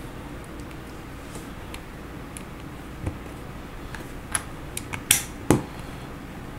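Plastic LEGO bricks being pressed onto a model car, clicking as they snap together. A handful of short sharp clicks come in the second half, the loudest about five seconds in.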